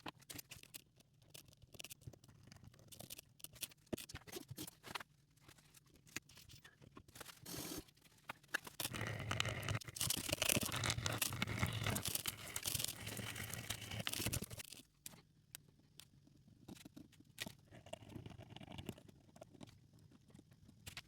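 Coin being scraped and scrubbed with small cleaning tools: scattered scratches and clicks, with a louder stretch of continuous scrubbing about nine seconds in that stops around fifteen seconds.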